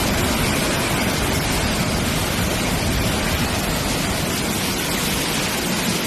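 Steady, loud rush of water, an even noise with no breaks, from floodwater or a heavy downpour.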